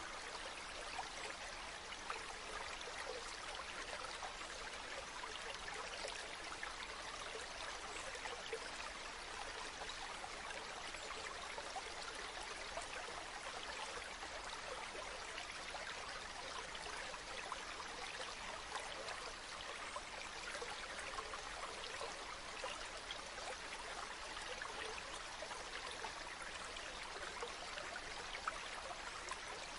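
Stream water running steadily over rocks, a continuous rushing with small splashes and trickles.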